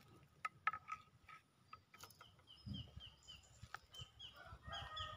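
Faint bird calls: a run of short high notes, about four a second, starting about two seconds in, with lower clucking notes joining near the end. A few faint clicks come in the first two seconds.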